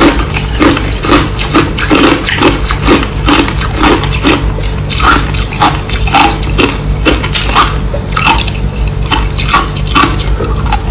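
Crushed ice being chewed close to the microphone: a steady run of crisp crunches, about two to three a second.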